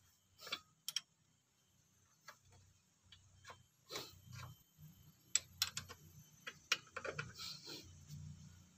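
Irregular metallic clicks and taps of hand tools on a scooter's cylinder head as T-handle wrenches are handled and turned on the head nuts, more frequent in the second half.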